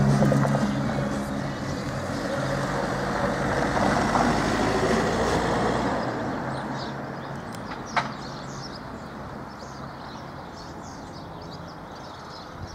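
Vehicle rumble that fades away over the first several seconds. A single sharp click comes about eight seconds in, and faint bird chirps follow.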